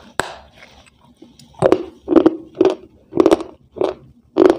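A person bites into a hard, crumbly white block with a sharp snap just after the start, then chews it with steady loud crunches, about two a second.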